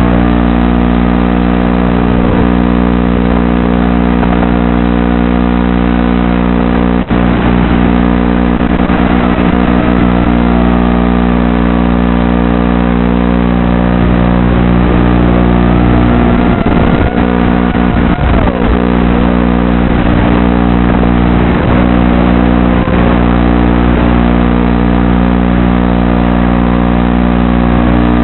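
Wizard X220 FPV racing quadcopter's motors whining in flight, their pitch rising and falling with the throttle over steady low droning tones.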